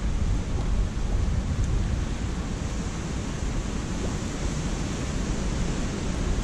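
Strong storm wind buffeting the microphone: a steady low rumble with a hiss above it.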